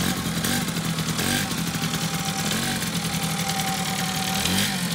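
1971 Arctic Cat Prowler mini bike's small single-cylinder engine idling, with short throttle blips about a second in, midway and near the end.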